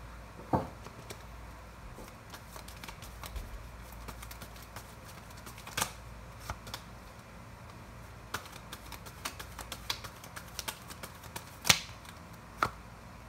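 Tarot cards being handled and shuffled: irregular light clicks and card snaps, with a few sharper snaps, the loudest shortly before the end.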